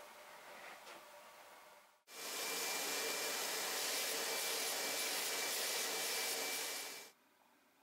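Apollo Pro-Spray 1500-3 HVLP turbine sprayer spraying finish: a steady hiss of air with a faint high whine, starting about two seconds in and cutting off suddenly about seven seconds in.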